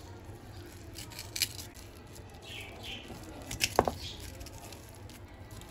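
Metal potato masher squashing boiled potatoes in a stainless steel bowl, with a few sharp clinks of the masher against the bowl; the loudest clinks come about two-thirds of the way through.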